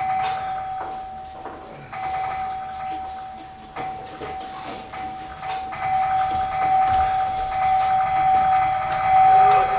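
A bell-like ringing tone, struck again every second or two and held between strikes, growing louder toward the end.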